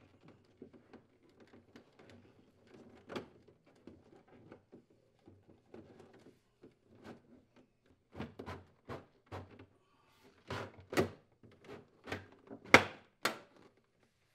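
Plastic evaporator cover of a refrigerator freezer being pushed and worked into place: scattered faint knocks and scrapes at first, then a run of sharp plastic knocks and thumps over the last several seconds, the loudest near the end.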